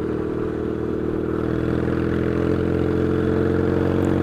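Yamaha XS650 parallel-twin engine running steadily on the move through loud aftermarket pipes, held to modest revs because its new piston rings are still bedding in.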